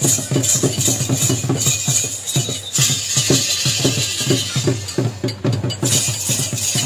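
Metal gear wheel of a bull-driven rig clattering rhythmically, about five clacks a second, as a pair of bulls turns it at a run.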